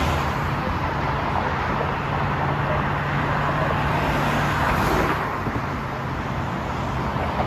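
Freeway traffic noise: a steady rush of cars and tyres on the road, with a low steady hum underneath that ends about five seconds in.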